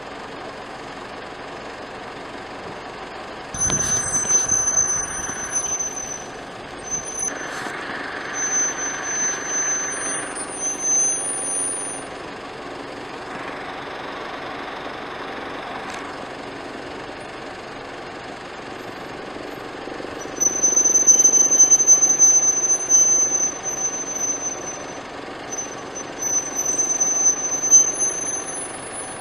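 Traffic noise from cars idling and moving on a road, louder in stretches about four seconds in, around eight to ten seconds, and from about twenty seconds on, with thin high-pitched tones that come and go over it.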